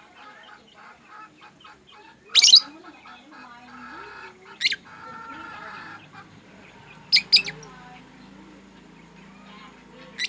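Lovebirds calling: four short, loud, shrill shrieks spaced a couple of seconds apart, with softer rapid chattering between them.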